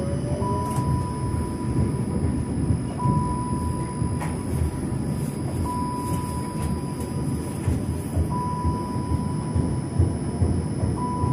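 Tram running slowly over street track with a steady low rumble of wheels and running gear, heard from the driver's cab. A single-pitch cab beep sounds five times, each about a second long, roughly every two and a half seconds.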